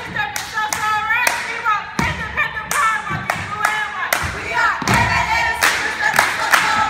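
Step team stepping: sharp stomps on a wooden gym floor and hand claps in a rhythm of about two to three hits a second, with voices calling out over them.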